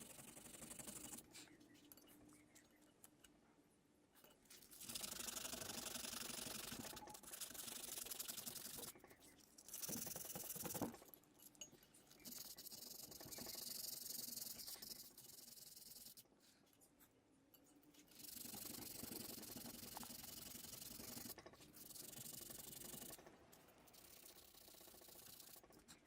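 Scrubbing and rubbing on rusty metal parts, in stretches of one to three seconds with short pauses between.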